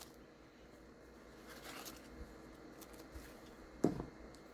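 Quiet handling of unboxing items, with faint rustling and one short knock nearly four seconds in.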